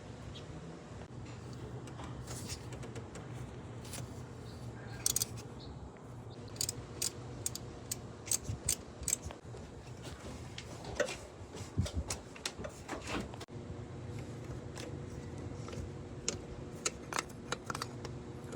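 A steady low hum under irregular, sharp metallic clicks and light jingling, busiest through the middle and again near the end.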